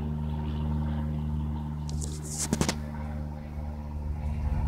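Cessna light aircraft's propeller engine droning steadily as it flies over, with a few sharp clicks about two seconds in.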